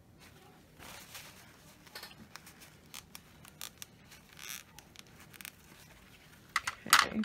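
Small handling noises from dot-painting tools and materials on a work surface: scattered light clicks and short scrapes, with a louder burst of clatter near the end.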